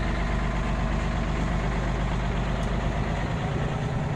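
Tour launch's engine heard from inside the passenger cabin, a steady low hum whose note changes about three seconds in.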